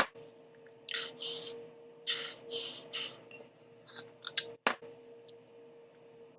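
Close-miked eating sounds: two pairs of short hissing mouth noises, then a few sharp clicks and clinks near the end.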